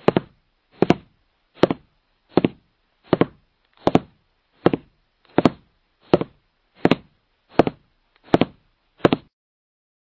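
Footsteps at a steady walking pace: thirteen even steps about three-quarters of a second apart, each a knock with a sharp click on top, stopping shortly before the end.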